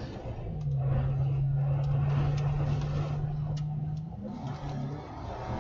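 Moving chase vehicle in strong wind: a steady rumble of wind and road noise, with a low steady hum from about half a second in until about four seconds in, and a few sharp ticks.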